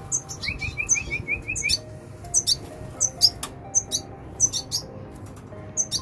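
Caged red siskins chirping: many short, high chirps throughout, with a quick run of about eight rising notes in the first two seconds.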